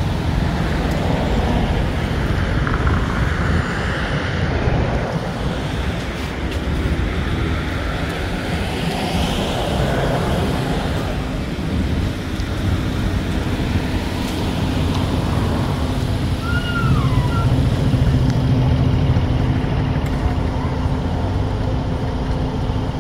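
Steady low background rumble with a faint hum running under it. About two-thirds of the way through comes one short, high squeak that falls in pitch.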